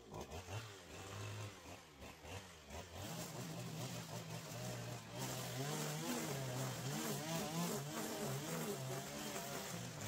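Petrol string trimmer's two-stroke engine running and cutting long grass, its speed rising and falling repeatedly. It runs louder and revs more from about halfway through.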